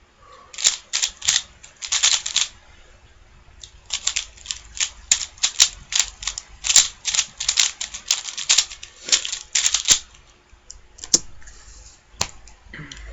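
Rubik's Cube being turned rapidly, its plastic layers clicking and clacking in quick bursts of turns. The turning stops about ten seconds in, followed by a few single clicks.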